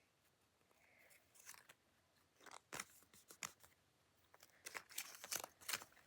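Faint crinkling and clicking of toy packaging and a small plastic toy being handled, in two short clusters, the second about five seconds in.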